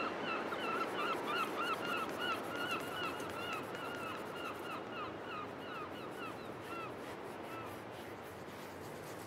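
Felt-tip marker squeaking against a drawing surface as it is rubbed quickly back and forth to colour in, about three or four short squeaks a second, fading out near the end.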